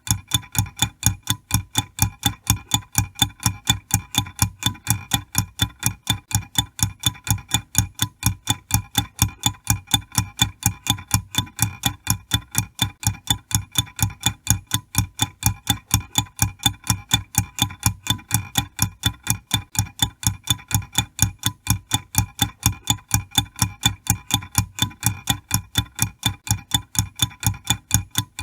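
Mechanical wind-up kitchen timer ticking steadily, several sharp ticks a second, as its clockwork counts down.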